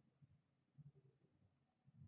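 Near silence: room tone with a few faint, brief low bumps.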